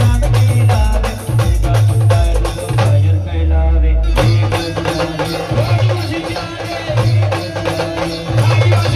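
Loud band music with a heavy bass beat and drums, played through a large speaker rig. The higher parts drop away for about a second around three seconds in, and the full music returns at about four seconds.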